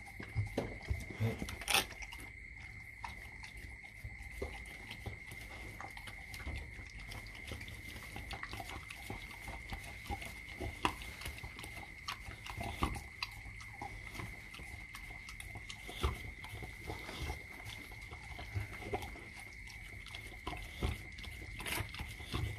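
Rottweiler mother licking and nosing her newborn puppy, with scattered short rustles and clicks from gloved hands and tissue paper handling the pup, over a steady high-pitched whine.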